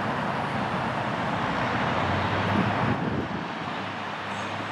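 Steady outdoor traffic noise: an even rush of passing and idling vehicles with a low hum underneath.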